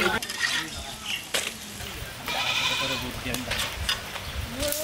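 Luchi deep-frying in a wide pan of hot oil: oil sizzling, with a few sharp clicks of metal spatulas against the pan.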